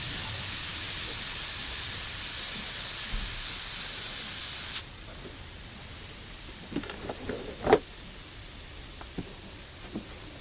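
Pressurised gas hissing steadily out of a refrigerator's refrigerant line, cutting off sharply about five seconds in. A few light clicks and metal taps follow, one louder knock near the end.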